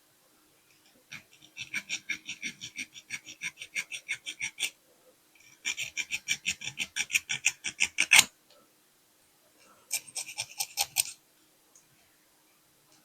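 Small hand file rasping across the peened end of a diecast toy's steel axle, filing off the mushroomed head so the wheel can come off. It comes in three bouts of quick strokes, about five a second, and the middle bout ends loudest.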